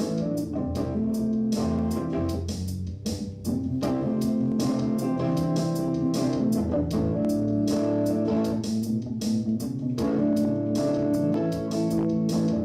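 Electric guitar and bass guitar playing over a steady beat.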